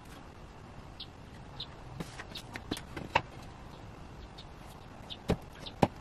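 Scattered light knocks and clicks as glued walnut boards are pushed together and bar-clamp jaws are set against them, with two sharper knocks near the end. Faint short high chirps come and go in between.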